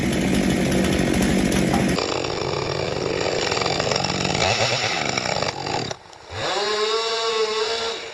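Gasoline chainsaw running and cutting wood, the sound changing abruptly about two seconds in. Near the end the engine drops for a moment, then revs up in a rising whine and holds steady at high speed.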